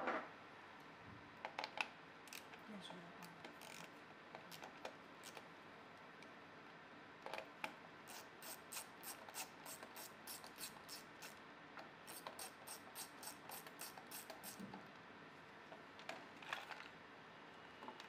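Faint metal clicks and taps of a socket tool working the nut on a mobility scooter's speed controller switch. In the middle comes a run of even clicks, about three a second, as the nut is turned.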